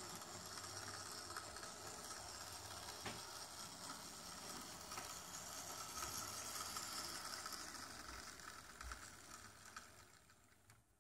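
Tender-driven Hornby OO-gauge 'Duchess of Sutherland' model steam locomotive running slowly: a faint whirr of its motor and gears with a few light clicks from the wheels on the track. The sound cuts out about ten seconds in.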